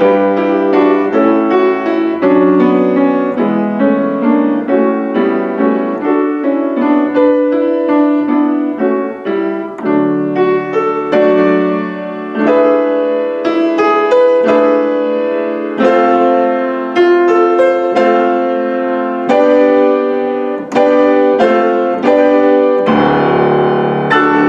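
Solo piano playing a slow, chord-rich piece, many notes struck and left to ring, ending on a held chord.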